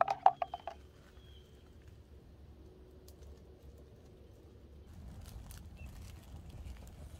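A music track cuts off under a second in, leaving faint outdoor ambience with a few short bird chirps; from about five seconds in, a light, irregular crackling patter joins in.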